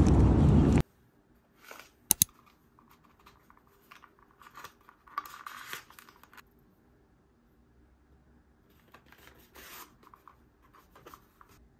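Loud, busy background noise cuts off abruptly under a second in. Then a quiet room with small desk-handling sounds: two sharp clicks about two seconds in, then scattered bouts of rustling and scratching of paper and stationery.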